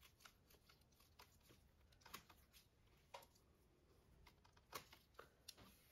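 Faint, irregular clicks and taps of metal Addi knitting needles as knit stitches are worked, over near silence.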